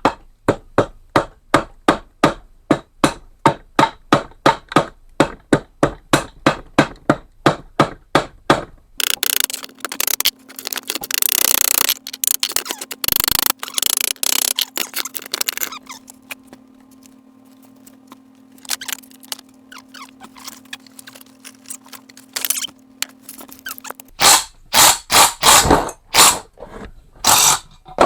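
Small hammer tapping on the sump cover of a Tecumseh lawnmower engine, about three quick blows a second, to knock loose a cover that is stuck fast. Midway the tapping gives way to several seconds of scraping and squeaking over a steady low hum, and harder blows start again near the end.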